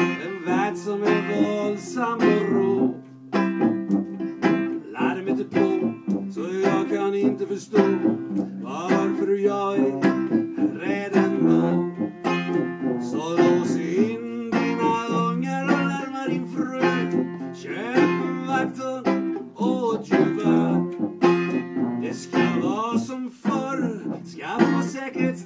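Banjo played through an instrumental break of a live song, with a second instrument carrying a bending melody line over it.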